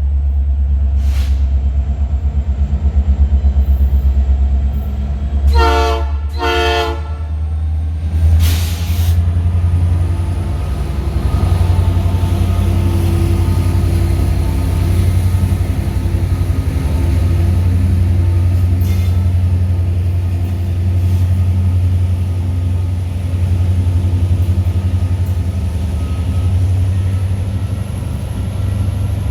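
CN SD70M-2 diesel-electric locomotive leading a long freight train past, its engine a heavy steady rumble. Two short horn blasts sound about six seconds in. From about ten seconds in, a steady higher whine runs over the rumble.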